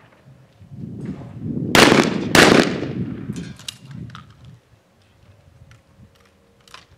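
Two shotgun shots about half a second apart, a skeet double. Each shot is sharp, and the two echo off together.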